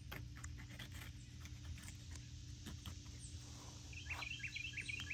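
Faint outdoor ambience under a steady low hum, with scattered soft clicks. About four seconds in, a bird chirps a quick run of short notes.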